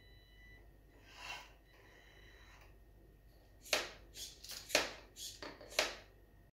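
A kitchen knife mounted on a LEGO robot arm knocking and scraping against a plastic cutting board: a quick run of five or six sharp clacks in about two seconds, starting a little past halfway.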